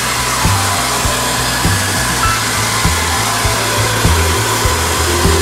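Hand-held hair dryer blowing steadily, drying a dog's coat after a bath, with background music with a steady low beat playing over it.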